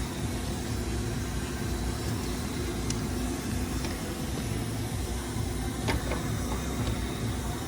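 Steady background hum and hiss, with a few faint clicks about three and six seconds in.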